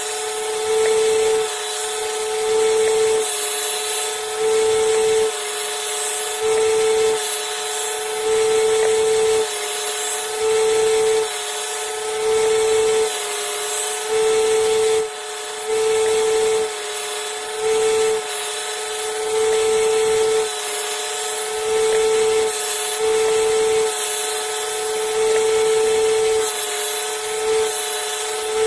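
Bucktool BG2600 combination belt sander and bench grinder running steadily with a constant hum. About every second and a half the sound swells with a louder, hissier stretch as a workpiece is pressed against it in repeated strokes.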